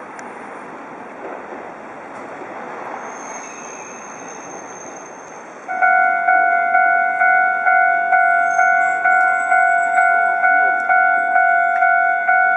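Steady tram and street noise, then about halfway through a level-crossing warning bell starts, ringing loudly in a steady electronic chime about twice a second.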